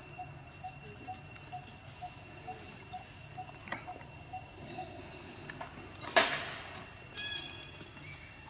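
Outdoor wildlife ambience: a high chirping call repeats about twice a second over a steady thin high whine. About six seconds in, a sharp rustle is the loudest sound, followed by a brief high squeak.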